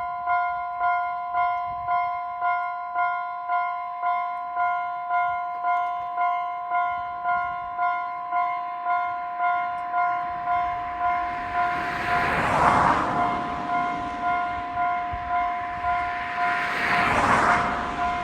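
Japanese railway level-crossing warning bell ringing in an altered, unusual tone, about two strokes a second. A train passes, its rushing noise swelling about twelve seconds in and again near the end.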